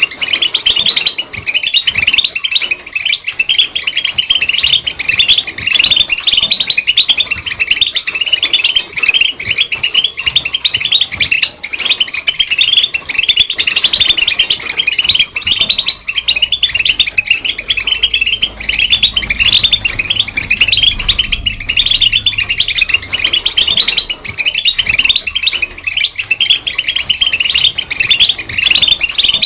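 European goldfinch singing: a fast, unbroken run of twittering chirps and trills.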